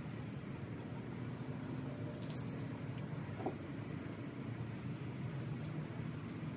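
Light rain with scattered drops ticking close by over a steady low rumble, and a brief hiss about two seconds in.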